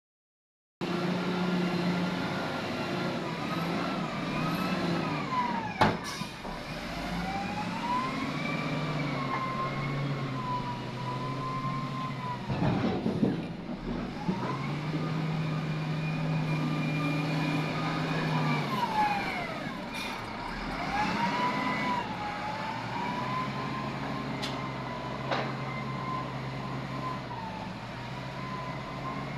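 Heavy diesel excavator engine and hydraulics working under load, with a whine that rises and falls in pitch over several seconds at a time. Now and then there is a sharp metallic clank.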